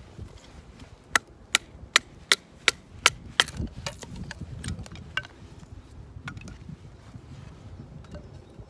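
Firewood being split by batoning: a baton beats a knife blade down through a log. About a second in comes a quick, even run of about seven sharp wooden knocks, then a few fainter taps.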